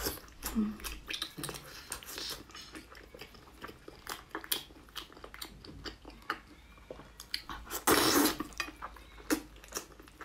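Close-up mouth sounds of someone chewing braised meat with the lips closed: wet smacking and many small crunchy clicks, with one louder slurp about eight seconds in.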